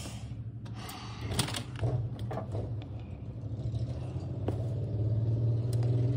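Aluminium-framed glass storm door being pushed against a heavy cardboard box blocking it, rattling in its frame with several clicks and knocks as it jams, over a steady low hum.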